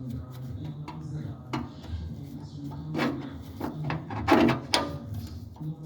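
Steel parts being handled and set against a mower deck: a series of metal clanks and knocks, loudest in a short clatter a little past four seconds in, over a steady low hum.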